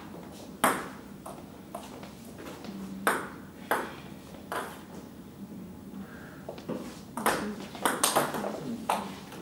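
Table tennis ball clicking off paddles and the table: a few single hits spread apart, then a quick run of hits about seven seconds in as a rally is played.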